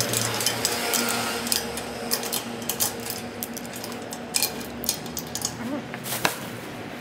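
A run of irregular clicks and taps over a steady low hum.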